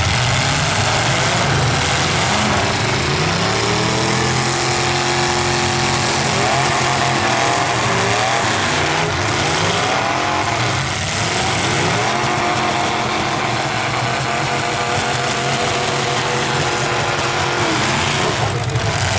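Several full-size stock car engines revving up and down at once, loud and unbroken, as the cars drive and push against each other in a demolition derby.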